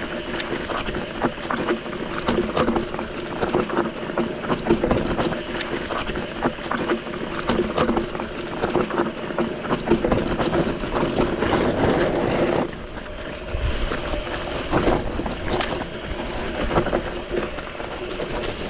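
Mountain bike descending a loose, rocky volcanic trail: tyres grinding over gravel and rock, with constant sharp knocks and rattles from the bike. Wind buffets the helmet-mounted camera's microphone, and a steady buzzing tone fades about two-thirds of the way through.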